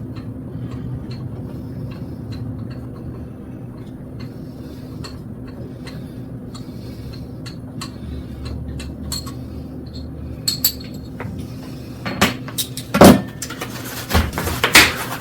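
Light clicks and clinks of electric bike parts being handled during assembly, over a steady low hum. A few sharper, louder knocks come near the end.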